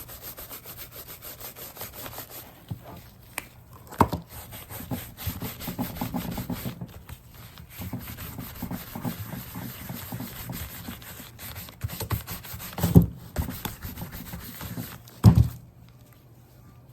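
Horsehair brush being rubbed briskly back and forth over the alligator leather of a handbag, buffing polish into the scales: a fast, scratchy rubbing. A few dull knocks break in, about 4 s in, around 13 s and near 15 s, as the bag is handled.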